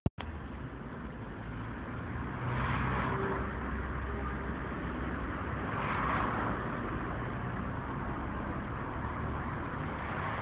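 Motor scooter being kickstarted from cold, with two louder swells about three seconds apart over a steady mechanical noise.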